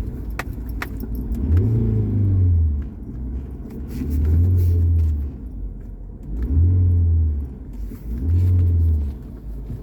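Fiat Punto 1.4 8v Fire Evo four-cylinder engine revved in four throttle blips, each rising and falling over about a second, with a few sharp clicks near the start. The blips bring out a noise that the mechanic places in the engine.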